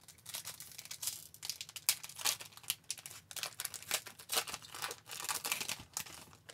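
Plastic wrapper of a 2008-09 Upper Deck Series 1 hockey card pack crinkling and tearing as the pack is opened, an irregular run of crackles and rustles.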